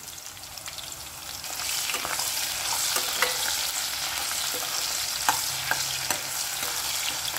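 Onion wedges sizzling as they fry in hot oil in a kadhai, the hiss growing louder about two seconds in. A metal slotted spoon stirs them, with a few light clicks of the spoon against the pan.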